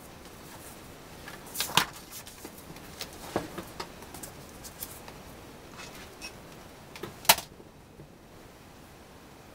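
A large sheet of drawing paper on a wooden drawing board being handled and turned: a string of papery rustles and light knocks. The loudest come about two seconds in and again about seven seconds in.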